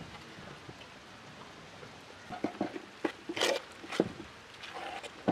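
Metal slotted spatula scraping and knocking against a large aluminium cooking pot while stirring mushrooms into a thick onion-tomato masala. The scrapes and clinks begin about two seconds in, with a longer scrape a little after three seconds and a sharp knock at about four seconds.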